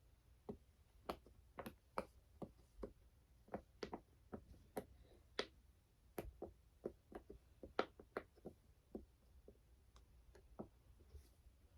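Faint, irregular small clicks and taps, about two or three a second, of plastic fidget toys being handled.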